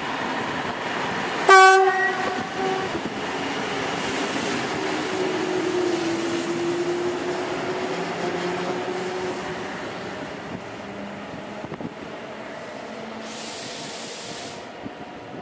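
Electric passenger train sounds its horn in one short, loud blast about a second and a half in. Two trains then pass each other on the double track, with a steady rumble of wheels and a humming tone from the moving units that slowly fades as they draw away.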